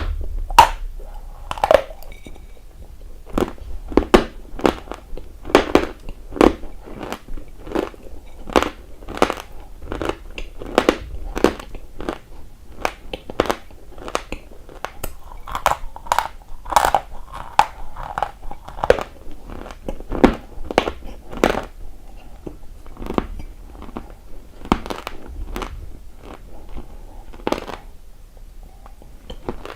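A person biting and chewing hard, dry chalky pieces of edible clay close to the microphone: sharp, irregular dry crunches, about one to two a second.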